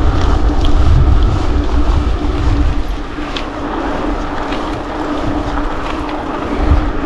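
Wind buffeting the microphone of a camera on a moving mountain bike, over a steady hum with scattered light ticks. The wind rumble is heaviest for the first few seconds, then eases.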